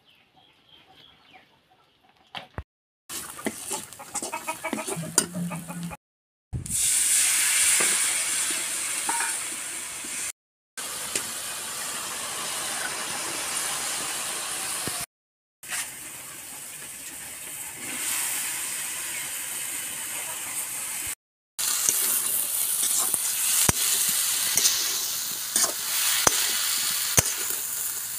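Hot oil sizzling in a steel wok while chopped mahua fruit is stirred and scraped with a metal spatula. The sound comes in several stretches of steady sizzle with scraping strokes, each cut off suddenly by a moment of silence.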